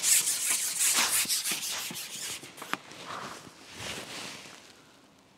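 Handling noise as an angler works a long carbon fishing pole: a few seconds of dense rustling and rubbing with a sharp click about two and a half seconds in, then a shorter weaker rustle before it fades.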